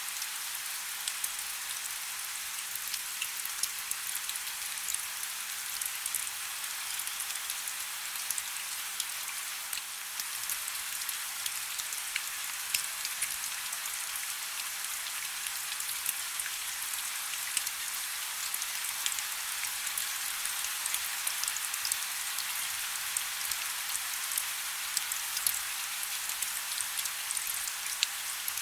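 Heavy rain falling steadily, a dense hiss with many individual drops pattering and ticking close by.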